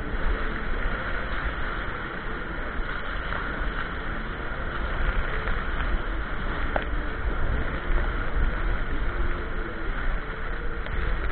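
Wind buffeting the microphone, a steady rumbling rush with a hiss of moving water, as heard from a kayak on the water.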